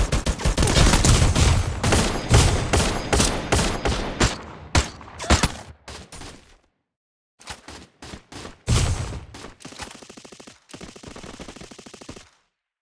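A rapid string of sharp bangs, dense and loud for about six seconds, then thinning into scattered cracks and a faint fast crackle that stops near the end.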